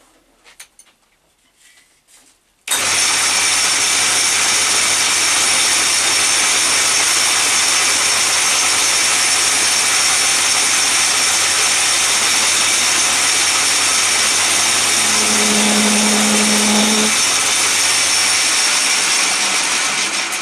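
A power tool or electric machine starts abruptly about three seconds in and runs at a loud, steady level, with a low hum beneath an even, hissing noise, then begins to wind down at the very end.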